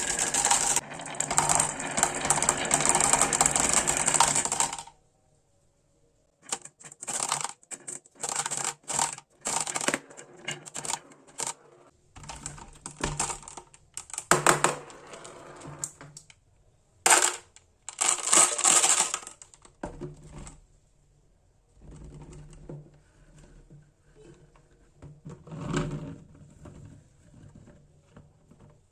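Marbles rolling and clattering down a toy marble run: a dense continuous rattle for the first few seconds, then after a brief pause a run of irregular clicks and clacks as marbles strike the track pieces and each other.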